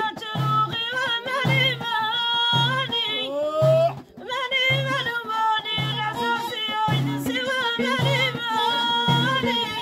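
Live folk music: a violin plays a wavering, ornamented melody over frame drums keeping a steady beat, about one low stroke every 0.8 seconds. The melody slides upward a little after three seconds in and breaks off briefly at about four seconds.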